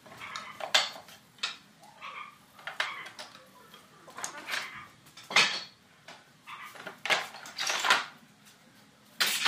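Old pine boards clattering and scraping against one another as they are pulled one at a time from a loose pile: a string of irregular wooden knocks and scrapes.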